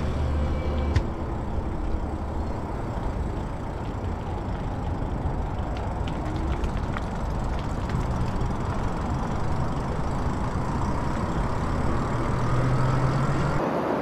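Riding an electric bike along a paved path: a steady rush of wind over the microphone and tyre noise, with a faint whine rising slowly in pitch during the second half.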